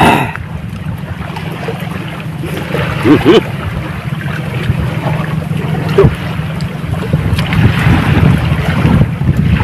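Wind buffeting the microphone: a steady low rumble, with a few brief small noises on top.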